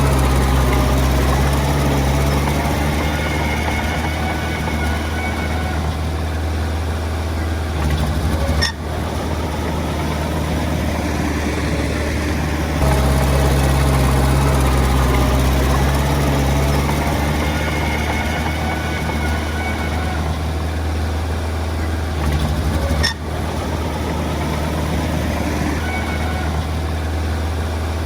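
Diesel engine of a small bulldozer running while it works, its note rising and falling in a repeating cycle, with a sudden break in the sound twice.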